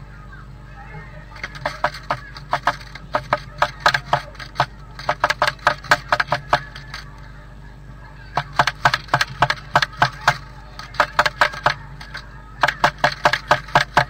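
Blue tit pecking at the wooden wall inside a nest box: rapid sharp taps, several a second, in runs of a second or two with short pauses between.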